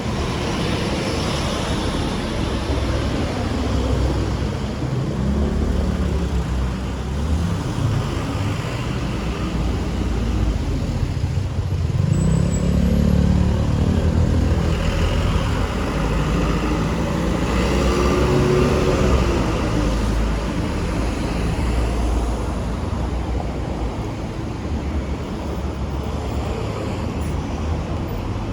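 Road traffic: cars passing one after another, each swelling up and fading away over a steady low rumble, the loudest passes near the middle.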